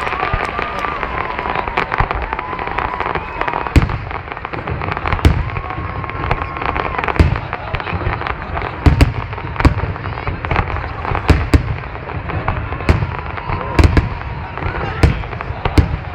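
Aerial fireworks exploding: an irregular run of sharp bangs and cracks, sometimes two or three close together, over a continuous rumble and crackle.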